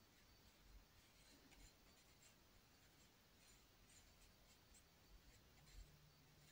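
Near silence with faint, short scratchy strokes of a paintbrush on canvas and a few soft low bumps.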